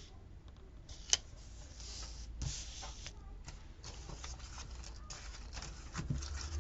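Paper rustling and light scraping as a peeled sticker is handled and pressed down onto a planner page, with a sharp click about a second in and a run of short scratchy rustles after it.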